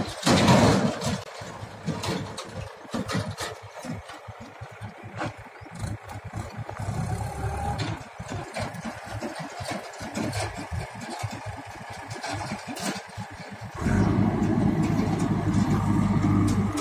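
Backhoe loader engine running unevenly, broken by many short knocks. It steadies into a louder, continuous engine note about three-quarters of the way through.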